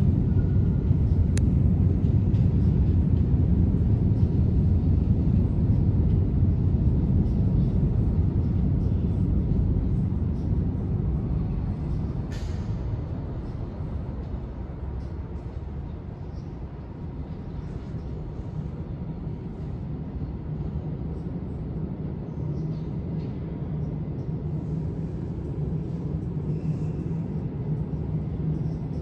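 New York City subway train running in the station, a loud low rumble that fades away over about the first fifteen seconds. A short hiss comes about twelve seconds in, and then a quieter low steady hum with a low tone remains.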